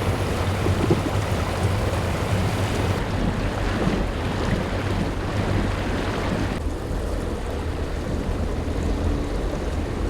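Wind buffeting the microphone and water rushing and splashing along a RIB boat's hull while it is underway, with a low steady hum beneath. The hiss steps down in level twice.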